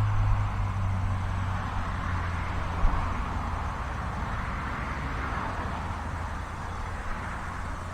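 Strong gusty wind buffeting the microphone: a steady low rumble with a hiss that swells in the middle and eases off toward the end.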